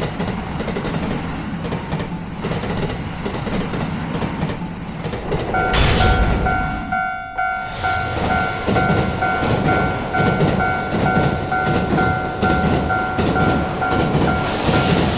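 Train rumbling past on the rails, then about five seconds in a Japanese level-crossing alarm starts its repeated 'kan kan' ringing over the train noise.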